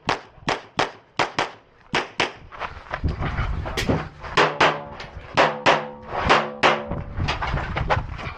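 Rapid pistol fire during a practical shooting stage: about twenty sharp shots in quick pairs and short strings with brief pauses between them. A low rumbling noise runs under the shots from about three to seven seconds in.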